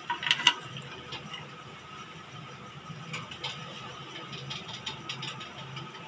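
Metal spoon clinking against a stainless steel pan a few times about half a second in, then sugar and water simmering in the pan over a gas flame as it melts into syrup, a steady low rumble and hiss with a few faint clicks.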